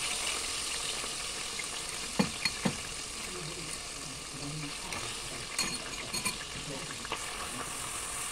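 Pork liver slices sizzling in oil in a metal wok, with metal tongs clicking against the pan several times as the pieces are moved, a cluster of clicks about two seconds in and more a few seconds later.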